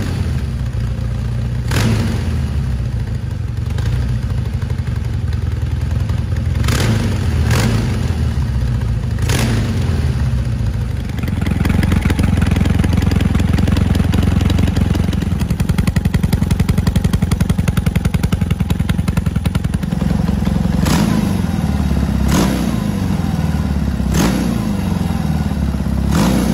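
BMW R100 RS air-cooled boxer twin running through twin SC Project stainless silencers with their dB killers fitted. It is just started and idling, then revved harder about eleven seconds in, with several sharp cracks along the way.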